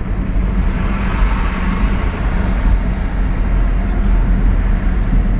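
Road noise of a moving car at speed: a steady low rumble of engine and tyres under a rushing hiss, which grows louder for a moment about a second in.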